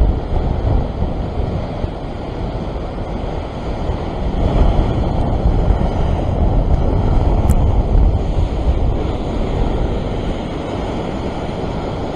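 Ocean surf surging and breaking into churning whitewater, with wind buffeting the microphone; the wash swells louder about four to five seconds in.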